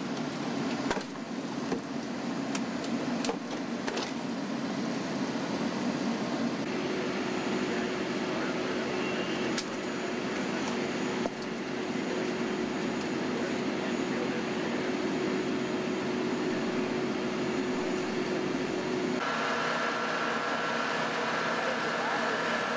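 Steady running hum of idling heavy emergency-vehicle engines, with a few sharp metallic knocks in the first few seconds. The steady tone in the hum shifts abruptly twice.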